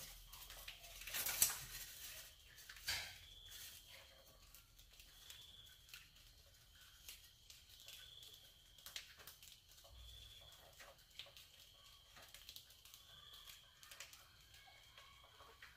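Rats scrabbling in and on a wire-mesh cage trap: faint rustling and scratching with scattered light clicks, louder for a moment about a second and a half in and again near three seconds. A faint short high chirp repeats about once a second.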